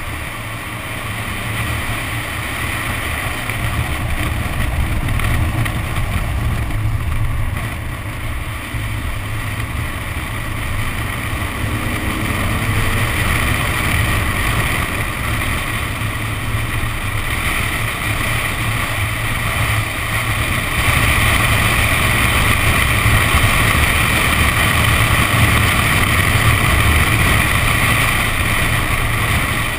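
Nissan 370Z sliding through standing water on a wet skid track, heard from a camera mounted outside on the body: a steady rush of tyre spray and wind buffeting with the engine under it. It gets louder about two-thirds of the way in.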